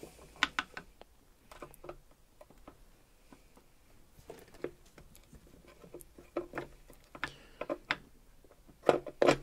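Scattered light clicks and knocks, a few at a time, as the new crankcase-ventilation cover and its seal are handled and fitted onto a marine diesel engine.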